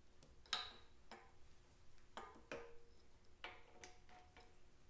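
A handful of light metallic clicks and clinks, some ringing briefly, as the hydraulic front damper and its mounting bracket are handled and fitted onto a Vincent Girdraulic front fork.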